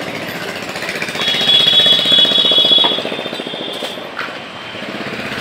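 A Hero Passion motorcycle's single-cylinder engine running with a rapid, even thumping. A high-pitched tone sounds from about a second in for nearly two seconds.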